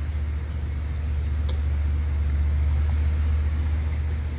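A steady low rumble with a faint hiss over it, and one faint click about a second and a half in.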